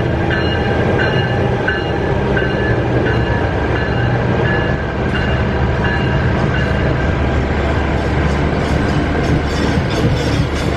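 Bombardier ALP-45DP dual-mode locomotive passing close by on diesel power, followed by its single-level coaches rumbling past. A grade-crossing bell rings about twice a second through the first half. Near the end the wheels click over the rail joints.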